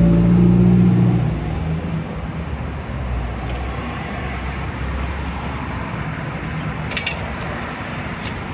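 A motor vehicle's engine hum, loud for about the first second, then steady outdoor traffic rumble, with a few light clicks near the end.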